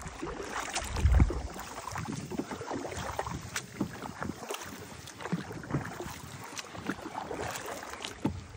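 Double-bladed kayak paddle dipping and pulling through calm water in repeated strokes, with splashes and drips, and wind on the microphone. A low thump about a second in is the loudest moment.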